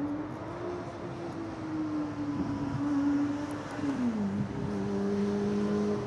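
A motor engine running with a steady hum, its pitch dropping sharply about four seconds in and then holding steady.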